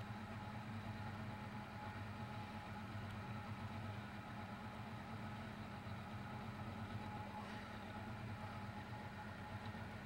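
Motorboat engine running steadily, an even hum with no change in speed.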